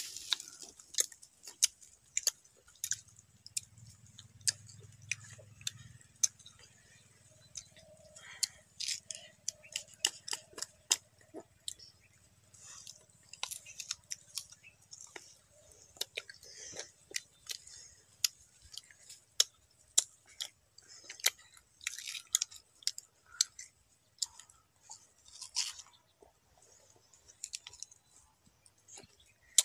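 Raw green mangoes being bitten and chewed by two children: crisp, irregular crunching and crackling of the firm unripe flesh and skin, several bites and chews a second.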